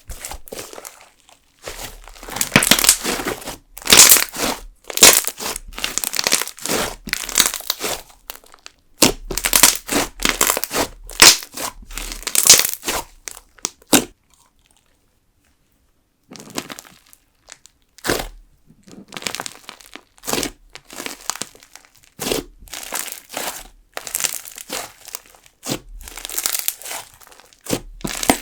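Jelly slime mixed with sugar beads squished and stretched by hand, giving dense crackling and crunching bursts. It breaks off for a couple of seconds about halfway, then comes back as sharper pops and crackles of air bubbles as the fluffed-up slime is pressed in its container.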